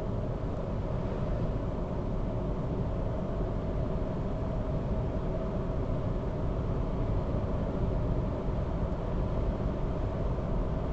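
Skoda car's engine and tyre noise heard from inside the cabin: a steady low rumble while the car pulls gently at part throttle, the level creeping up slightly with no gearshift.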